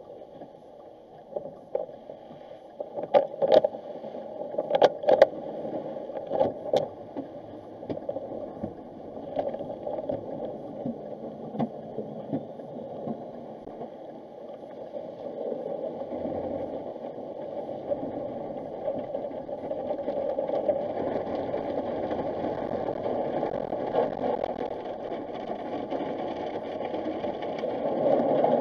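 Automatic car wash heard from inside the car: soft-cloth wash strips swishing and slapping over the body and windshield, with several sharp slaps in the first few seconds. The wash noise then builds into a steady rush of water spraying over the glass toward the end.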